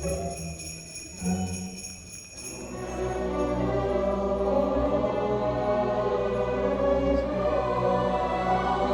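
School orchestra playing holiday music: sleigh bells jingle in a steady rhythm over low bass notes, then about three seconds in the full orchestra enters with sustained, swelling chords.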